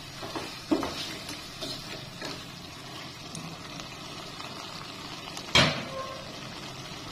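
Snakehead fish pieces and spice paste sizzling in an aluminium pot as a wooden spatula stirs and scrapes them, with a few light knocks early on. One sharp, loud knock about five and a half seconds in, followed by a brief faint ring.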